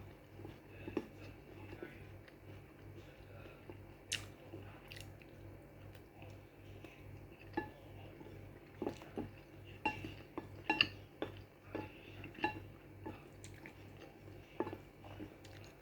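Eating utensils clicking and scraping against a dish while instant pancit canton noodles are eaten, with soft chewing. The clicks come irregularly and cluster about two thirds of the way in.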